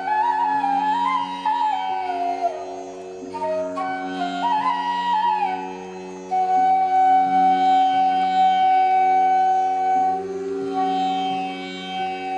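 Instrumental background music: a melody gliding between notes over a steady drone, settling into one long held note about six seconds in.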